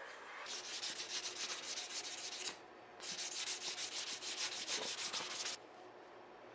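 Sandpaper held against the face of a steel ball-peen hammer head spinning in a lathe, polishing it: a scratchy, rapidly pulsing hiss in two passes of about two seconds each, with a short break between.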